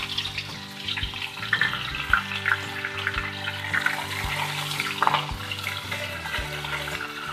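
Chopped chillies, garlic and cumin sizzling and crackling in hot mustard oil in a kadai, with scattered pops as a metal ladle stirs them.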